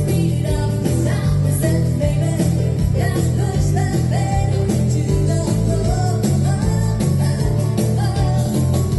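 Live dance band playing a rock'n'roll number: a woman singing over electric guitar, keyboard, a stepping bass line and a steady drum beat.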